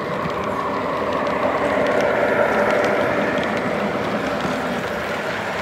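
Electric model freight train rolling past on the layout track, a steady rumble of wheels on rail that swells about two seconds in as the cars pass close, then eases.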